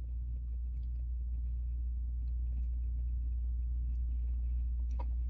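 Steady low hum, with a few faint ticks over it.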